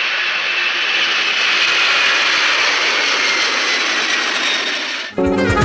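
Jet aircraft engine noise: a steady loud rush with a high whine that slowly falls in pitch, cut off abruptly about five seconds in.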